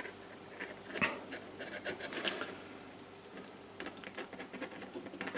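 Light clicks, taps and rustling of small plastic tool parts and wiring being handled on a workbench, with a slightly firmer knock about a second in and a run of quick clicks near the end.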